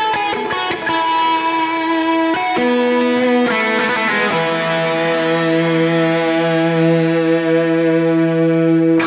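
Overdriven electric guitar played through a Line 6 POD X3 Live multi-effects preset: a run of quick picked notes, then a chord held ringing from about halfway through until it cuts off near the end.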